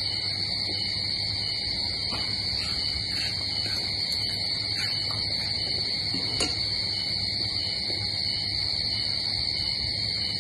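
Steady, high-pitched chorus of insects, with a few faint clicks of spoon and fingers at the meal, the sharpest about six seconds in.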